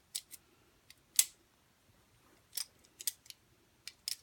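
Fidget spinners clicking against each other as they are stacked and handled in the hand: irregular sharp clicks, about nine in all, the loudest about a second in.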